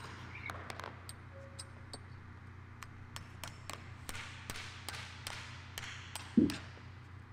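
Claw hammer driving 16d duplex nails through a steel turnbuckle foot plate into a plywood floor: a run of quick, light taps, several a second, with one heavier thud about six seconds in.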